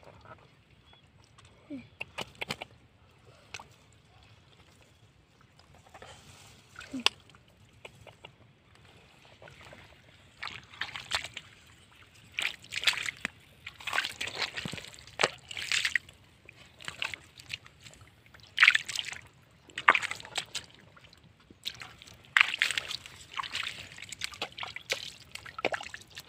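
Water splashing and sloshing in irregular bursts: sparse at first, then frequent and louder from about ten seconds in.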